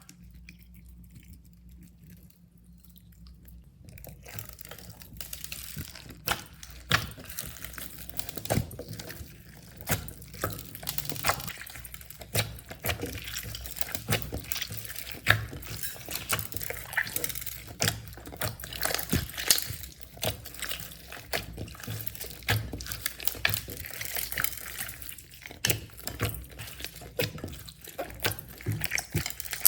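Slime being squished and kneaded by hand, making dense, irregular wet clicks and pops. It is nearly quiet for the first few seconds, and the squishing starts about four seconds in.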